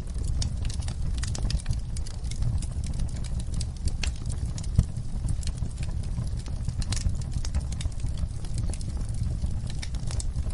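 Wood fire burning in a fireplace: dense, irregular crackles and pops over a low, steady rumble, with one louder pop near the middle.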